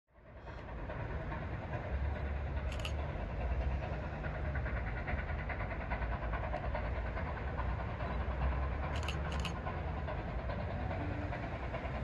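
A train running out of sight: a steady rail rumble that fades in over the first moment, with a few short high hisses about three seconds and nine seconds in.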